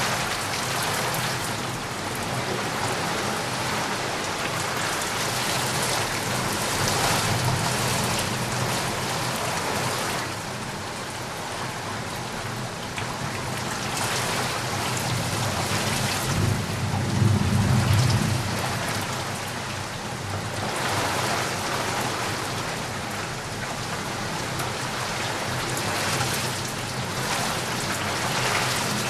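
Heavy rain falling steadily and pattering on surfaces, swelling and easing in waves, with a low rumble of thunder that builds to its loudest about two-thirds of the way through.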